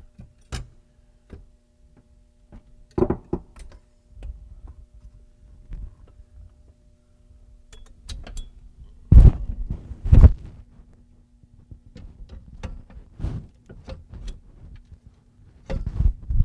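Metal clunks and knocks as a conversion-kit strut is worked up into place on a car's strut tower, lined up on its dowel pins. The knocks come irregularly, the two loudest about a second apart midway.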